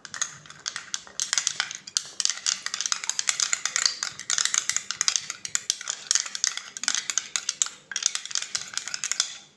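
Steel spoon stirring fast in a small glass bowl, a quick continuous run of clinks and scrapes against the glass as gelatin powder is dissolved in water, easing off briefly about eight seconds in.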